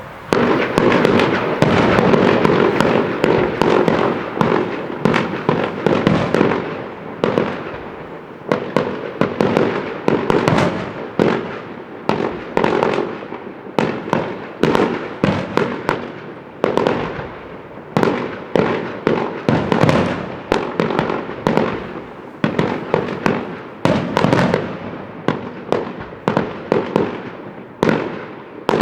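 Fireworks going off in a dense, continuous barrage of bangs and crackling. From about a quarter of the way in, the loudness swells and falls roughly once a second.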